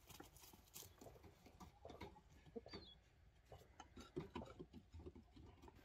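Faint, scattered soft taps and clicks of hands and a spoon working quince stuffing in a bowl, over quiet outdoor background.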